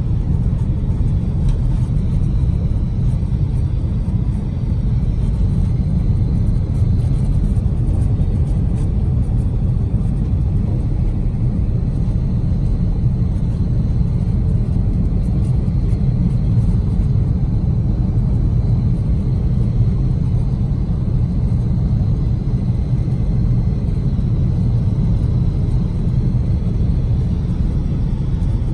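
Steady low rumble of a car driving, heard from inside the cabin: road and engine noise that holds constant.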